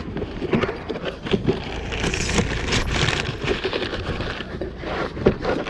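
Hardware being handled while working on the condenser fan: irregular metallic clinks and knocks, with a stretch of rustling noise about two to three and a half seconds in.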